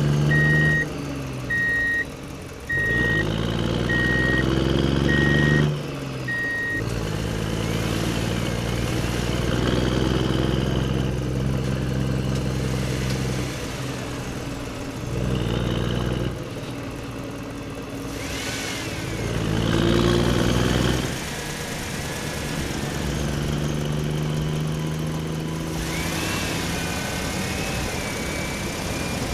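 Truck engine idling and revving, its pitch rising and falling several times. A reversing beeper sounds through the first six seconds or so, about one beep every three-quarters of a second.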